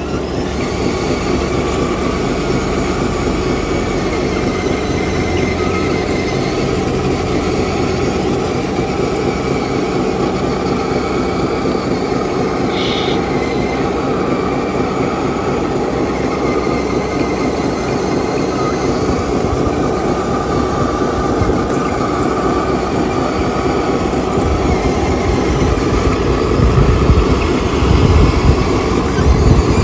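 Radio-controlled CAT long-reach hydraulic excavator running, its hydraulic pump whining steadily as its steel tracks rattle, growing louder with a deeper rumble near the end.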